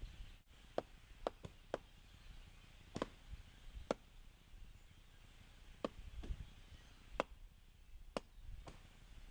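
Axe blows chopping into old, soft rotten logs: about ten sharp strikes at an uneven pace.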